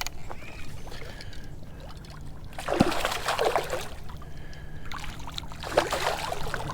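Water splashing and sloshing around a kayak in two bursts about three seconds apart, over a low steady hum.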